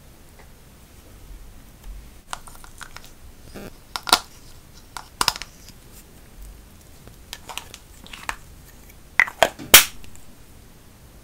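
Close handling of lipstick tubes and a small metal spatula: scattered sharp clicks and taps with brief scrapes, starting about two seconds in, the loudest clicks just before ten seconds in.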